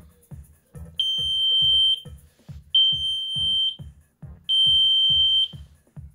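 Three long, steady, high-pitched electronic beeps, each about a second long and nearly two seconds apart, sounding over background electronic music with a steady beat.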